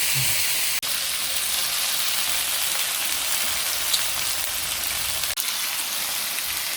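Pork belly (samgyeopsal) frying in a Saladmaster pan with no oil, giving a steady sizzling hiss.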